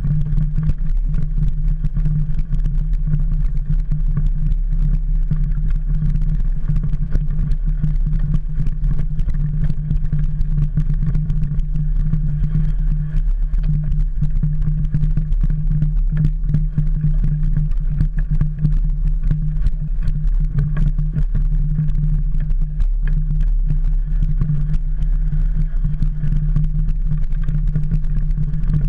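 Mountain bike riding a rough dirt forest trail, picked up by a handlebar-mounted camera: a steady low rumble and hum with constant small rattles and knocks from the bike over the ground.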